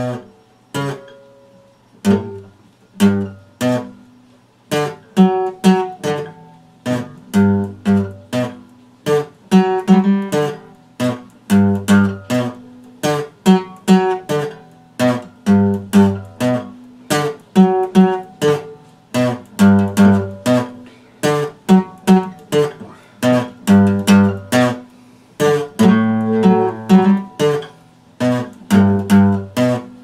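Epiphone acoustic guitar played solo, chords picked in a steady rhythm: a few spaced strokes at first, then fuller and busier from about five seconds in.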